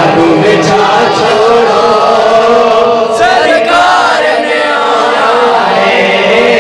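A large crowd of men and boys chanting together, many voices overlapping in one continuous loud chant.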